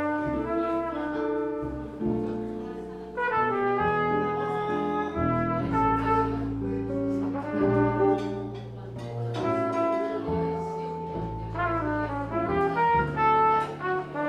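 Trumpet playing a jazz ballad melody with long held notes, accompanied by guitar and upright bass.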